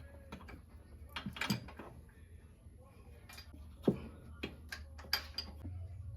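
Hand wrench clicking and clinking against the metal of a car's exhaust fasteners while a nut is worked off, with irregular sharp clicks and one louder knock about four seconds in.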